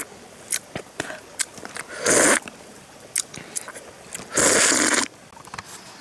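A person eating fish off a leaf with her mouth at the food, close up: two loud slurps, about two seconds in and again near the end, with chewing and lip-smacking clicks between.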